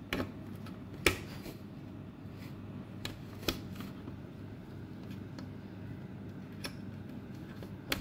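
A handful of sharp, irregular clicks, about six, as plastic wire connectors and clips are pushed into the sockets of a TV mainboard, over a low steady hum.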